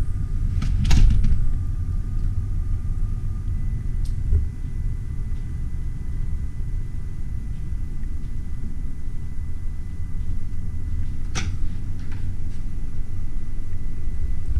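Steady low rumble of a cruise ship's interior, with a faint steady hum and a few sharp clicks, the loudest about a second in.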